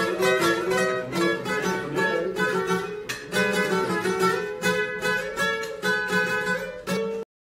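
Acoustic guitar strummed in a steady rhythm, chords without singing. The sound breaks off abruptly for a moment near the end.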